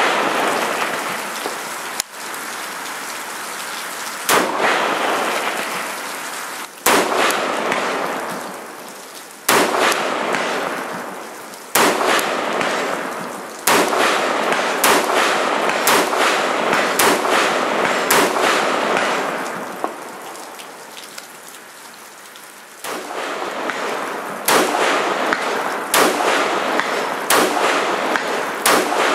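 Rifle shots from a 20-inch AR-15 in 5.56/.223: single shots about two seconds apart, then faster strings of rapid fire. A steady rushing hiss fills the gaps between shots.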